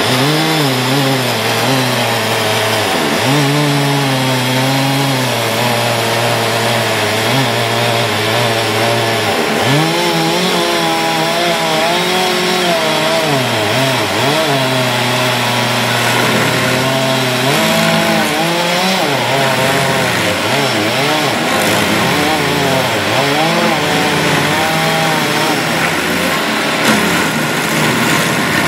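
Vermeer stump grinder running at full throttle, its cutter wheel grinding a tree stump. The engine note sags and recovers over and over as the wheel is swept through the wood and the engine labours under the load.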